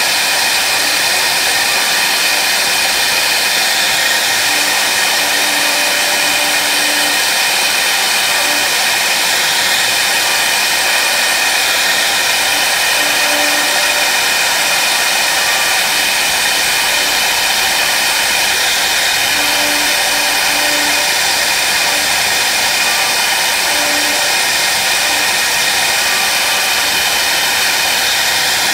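CNC router spindle running at high speed, its bit engraving letters into a wooden board: a steady high whine mixed with cutting noise.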